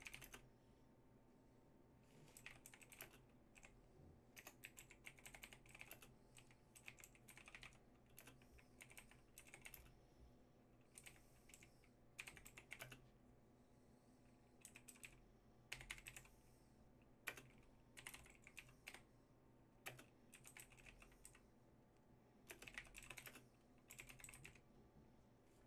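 Faint keystrokes on a computer keyboard, typed in short bursts with brief pauses between them.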